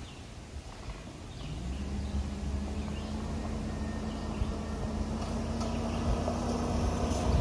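Suburban's engine rising in pitch about a second and a half in as the vehicle pulls away, then holding a steady hum over a low road rumble.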